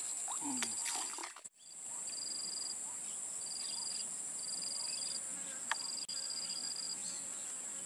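Insects droning and trilling: a steady high-pitched drone with about six short, repeated trills over it. The sound drops out briefly about a second and a half in.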